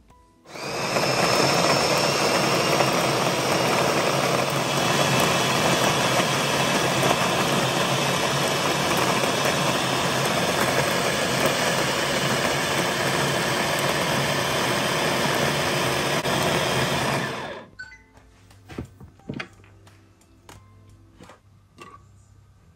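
Electric food chopper's motor running at full speed with its blades chopping onions, sweet peppers, garlic and herbs in a glass bowl. It starts about half a second in, runs steadily, and cuts off about five seconds before the end, leaving a few light clicks and knocks.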